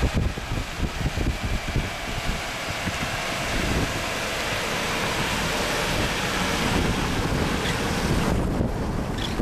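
Gusty storm wind blowing hard across the microphone: a rough rushing noise with uneven low rumbles in the first few seconds, settling into a steadier hiss.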